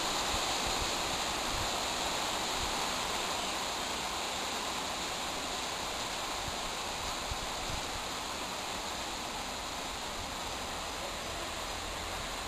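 Steady, even hiss of background noise with no distinct calls, and a couple of faint taps a little past the middle.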